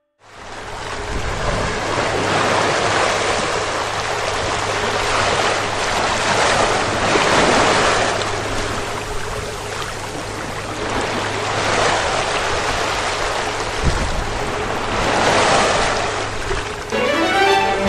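Sea water rushing and splashing along the hull of a moving tall ship, swelling and easing every few seconds, with wind on the microphone and a steady low hum underneath.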